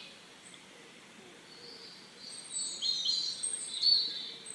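Small songbirds chirping and whistling in short, high notes, starting about two seconds in after a quiet stretch of faint hiss.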